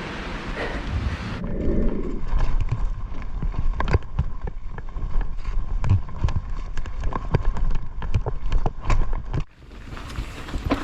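Mountain bike clattering down a rocky trail: a fast, irregular run of knocks and rattles as the tyres and frame hit rocks, cutting off abruptly near the end.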